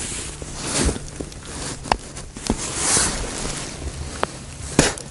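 Clothing rustle and handling noise as an ice-fishing float rod and its line are taken in by hand, with a few sharp clicks and taps about 1, 2, 2.5 and just under 5 seconds in.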